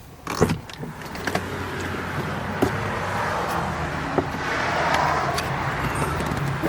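Getting out of a car: a few clicks and knocks of the door and its handle over the steady low hum of the running vehicle, with a rush of noise that swells and fades about five seconds in.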